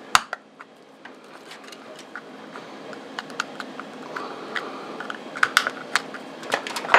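Screwdriver working open the small plastic case of a panel meter: irregular light plastic clicks and scrapes, with a sharper click just after the start and a busier run of clicks near the end.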